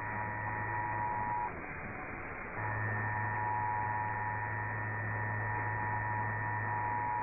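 Emergency Alert System two-tone attention signal, a steady dual tone received over radio with a low mains hum beneath it; it breaks off for about a second roughly a second and a half in, then resumes. It is the alert tone that opens an EAS message, here a required monthly test.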